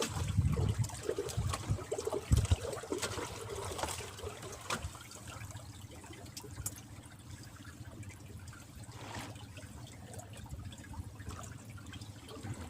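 Water trickling and lapping, with a few low knocks in the first few seconds.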